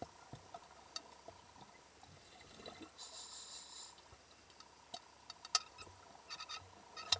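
Faint underwater noise picked up by a submerged camera, with scattered sharp clicks and ticks and a short hiss about three seconds in.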